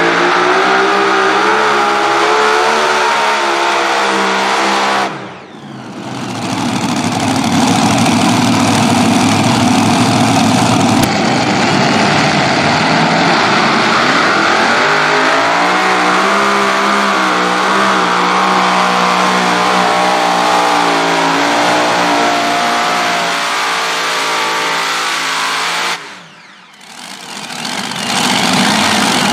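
Super modified pulling tractors, each powered by several supercharged engines, running hard while pulling the sled, their engine note wavering in pitch. The sound drops away suddenly twice, about five seconds in and near the end, before the next tractor's engines build back up.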